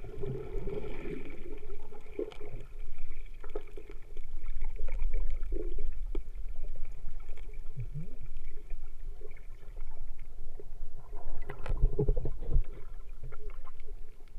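Water heard through an underwater camera: a muffled low rumble of moving water with scattered small clicks and knocks, growing louder and fuller for about a second near the end.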